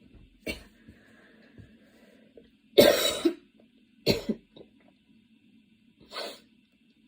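A girl coughing during a long coughing fit: four separate coughs a second or two apart, the loudest about three seconds in.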